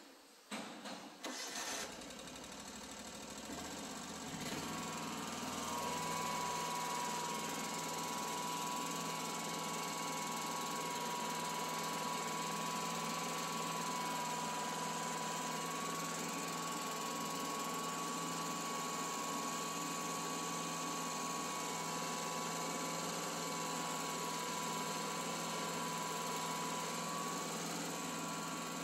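A John Deere riding mower's engine is turned over with the key and catches within the first few seconds. It then runs at a steady speed, holding an even tone.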